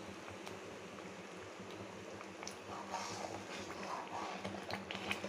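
Thick akkara vadisal mixture of rice, lentils, milk and jaggery simmering in a pan, with scattered small bubbling pops and a steel spoon scraping as it is stirred, over a low steady hum.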